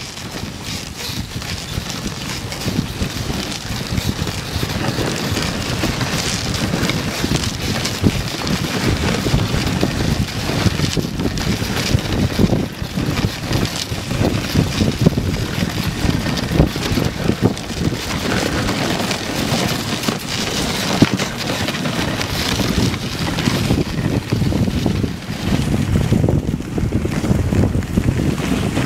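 Dog sled running over snow: a steady rushing noise of the runners sliding on the snow, with wind buffeting the microphone.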